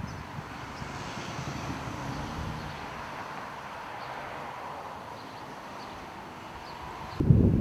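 Steady outdoor background noise, a distant traffic hum. Near the end a sudden, louder low rumble hits the microphone.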